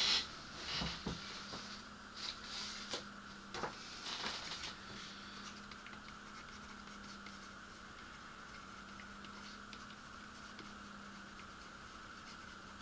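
Quiet room tone with a steady electrical hum, and a few light taps and clicks in the first few seconds that then stop.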